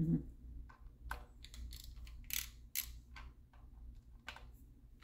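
Socket ratchet clicking in short uneven runs as it loosens the nuts on the timing-chain sprocket.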